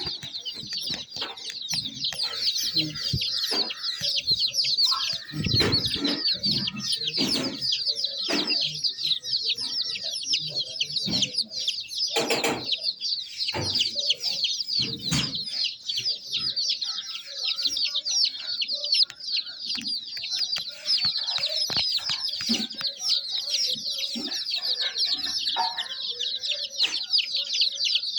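A group of baby chicks cheeping continuously, many short high-pitched peeps overlapping, with occasional knocks and thumps among them.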